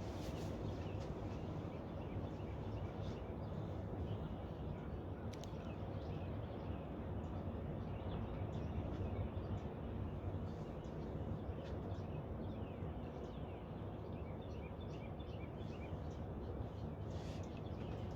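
Ocean surf roaring steadily, a constant low rumble, with faint bird chirps over it.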